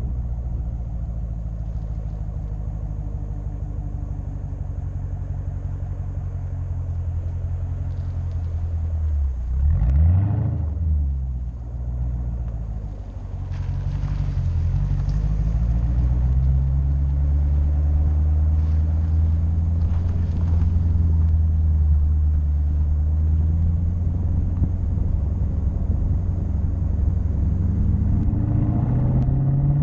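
Muffler-deleted Dodge Challenger Scat Pack's 6.4-litre HEMI V8 exhaust droning while driving, heard from inside the cabin. About ten seconds in the engine note dips and climbs sharply and gets louder, dips again a few seconds later, then holds a steady drone that rises again near the end.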